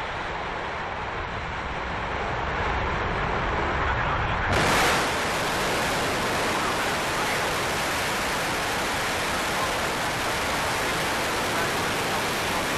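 Soyuz rocket's first-stage engines firing at liftoff: a steady rush of noise that turns brighter and louder about four and a half seconds in.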